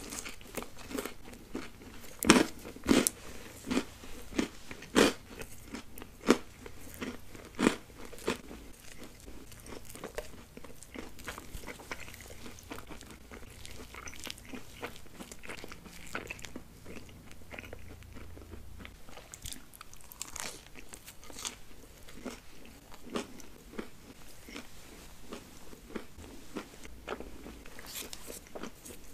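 A person biting and chewing a crunchy bubble waffle: a run of sharp, loud crunches over the first several seconds, then quieter, steady chewing with a few more crunches later on.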